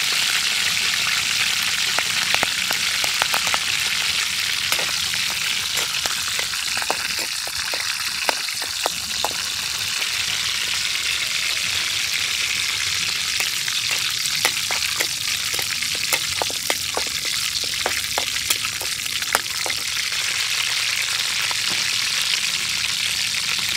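Green leaves deep-frying in hot oil in a steel wok, a steady sizzle with many sharp crackles and pops. A metal spatula stirs them now and then.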